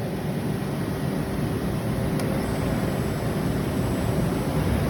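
Drill press motor running steadily with the spindle spinning, a low hum and rumble. A faint click sounds about two seconds in.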